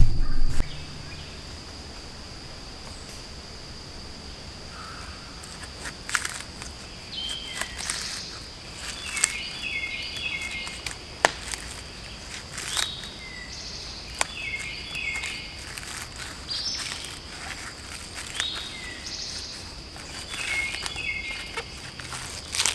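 Woodland ambience: a steady high-pitched insect drone and a bird repeating a short phrase every couple of seconds. From about six seconds in come sharp clicks and scrapes as a knife cuts and pries bark from a dead aspen trunk.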